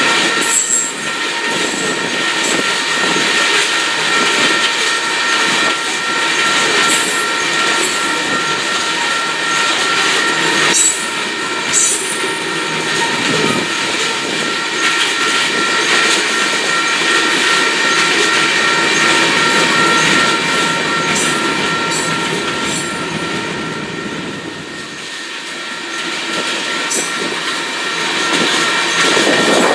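Open-top gondola freight cars rolling steadily past with the clickety-clack of wheels over rail joints and scattered sharp clicks. A grade-crossing bell rings steadily over it and fades near the end.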